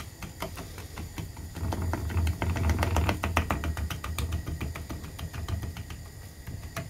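Bubbling sugar syrup of melted Skittles, butter and sugar crackling in a frying pan as a wooden spoon beats it: rapid irregular pops and clicks, densest in the middle few seconds, over a steady low rumble of the gas flame.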